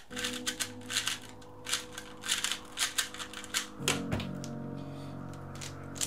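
Rapid plastic clacking of a speedcube being turned, first a 2x2 and then a 3x3, with a knock about four seconds in as the 2x2 is set down on the table. Sustained background music chords play underneath.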